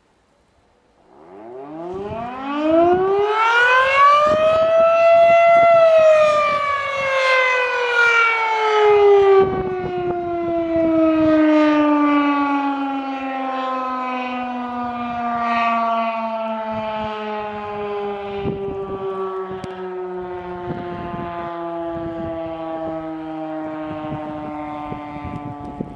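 Federal Signal Model 5 mechanical warning siren sounding its noon blast. It winds up from silence about a second in, rising steeply to its top pitch about six seconds in, then winds down slowly, its pitch still falling at the end.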